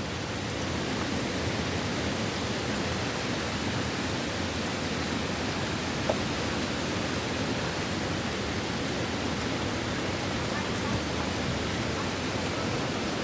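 Steady rushing noise of wind building up ahead of a hurricane, even and unbroken, with one faint click about six seconds in.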